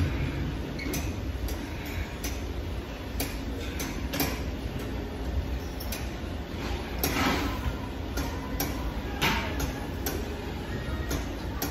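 Busy gym room noise: a steady low rumble with scattered sharp clicks and knocks, and three short hissing rushes about half a second each.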